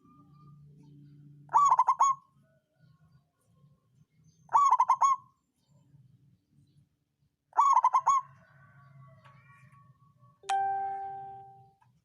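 Zebra dove (perkutut) cooing: three short rolling coo phrases about three seconds apart. Near the end comes a single bell-like ding that rings and fades.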